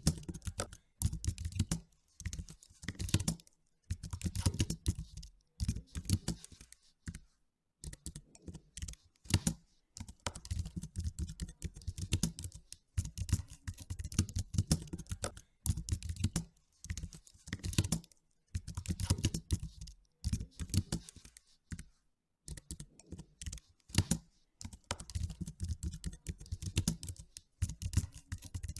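Typing on a computer keyboard, in bursts of a second or two of fast keystrokes separated by short pauses.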